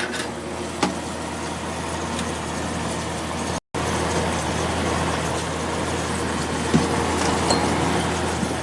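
Magic Chef dehumidifier running with its compressor on: a steady hum and fan air noise, with refrigerant (freon) hissing. The unit's compressor shuts off every couple of minutes. The sound cuts out for a split second about three and a half seconds in, and there are a few faint clicks.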